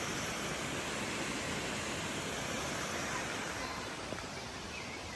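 Waterfall: a steady rush of falling water, easing slightly about three and a half seconds in.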